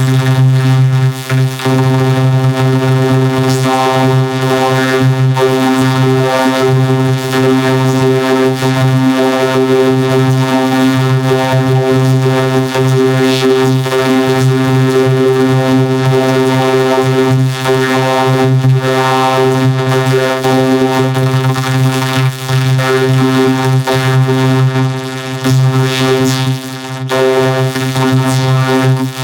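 Music: a single loud, steady droning tone with many overtones, held without a break, dipping briefly near the end.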